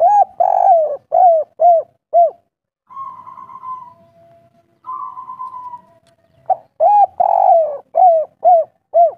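Spotted dove cooing in two phrases, a few seconds apart. Each phrase has two short coos, a longer rolling coo, then three quick closing coos, the 'kuk 3' song type. Quieter drawn-out notes fill the gap between the phrases.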